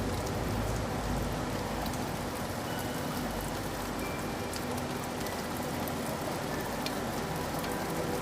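Steady rain falling, a continuous even hiss with scattered sharp ticks of single drops.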